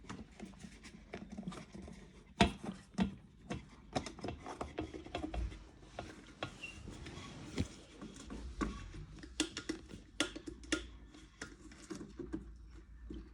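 Irregular small clicks and knocks of hands handling the parts of an electric kettle under repair, the loudest knock about two and a half seconds in.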